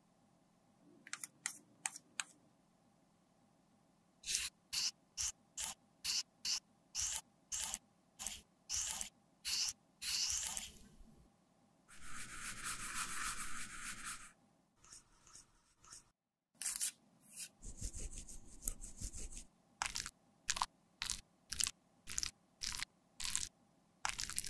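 Close-up handling sounds: a run of sharp plastic clicks, about two a second, from a clear plastic lipstick tube being taken apart. About 12 s in comes a couple of seconds of rubbing from a gloved finger working inside a small glass beaker. Near the end, short clicks and crunches come from a knife slicing a lipstick bullet.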